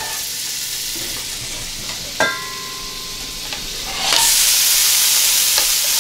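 Butter sizzling in a hot stainless steel skillet, with a metallic clink and a brief ring about two seconds in. About four seconds in, chopped onion goes into the pan and the sizzle gets louder.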